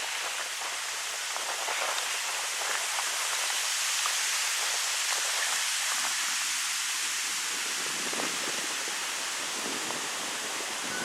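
Wind blowing through birch trees, the leaves rustling in a steady hiss that swells a little around the middle.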